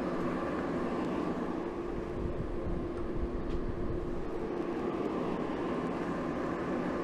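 Forge running steadily: a constant rushing noise with a steady hum under it, as the forge heats the steel.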